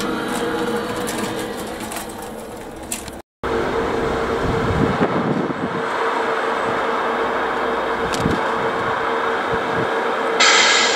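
Tamiya RC truck's electronic sound unit playing a steady truck engine idle with a constant hum, cut off briefly about three seconds in. A short, higher-pitched tone sounds near the end.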